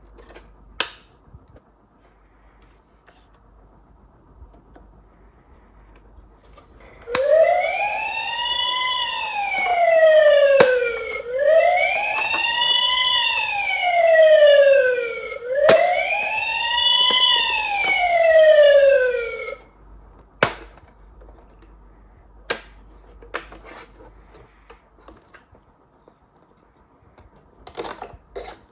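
Toy ambulance's electronic siren sounding three slow wails, each rising and then falling in pitch, starting about seven seconds in and cutting off abruptly. Sharp clicks and knocks from the toy being handled come before, during and after.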